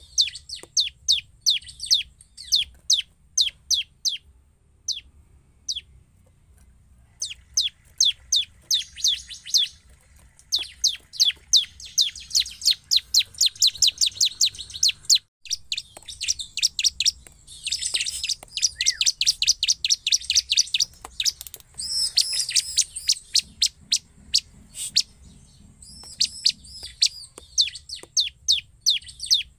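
Bar-winged prinia (ciblek) in full song: long, rapid trills of sharp, high chirping notes, thinning out briefly about five seconds in and then running on densely.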